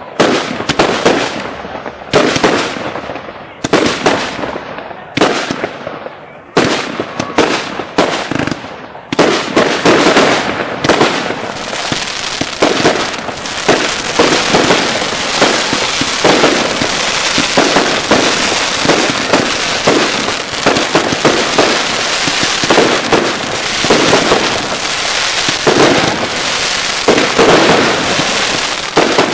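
Consumer fireworks launching and bursting overhead: separate sharp bangs with short gaps for about the first nine seconds, then a dense, continuous barrage of reports and crackling.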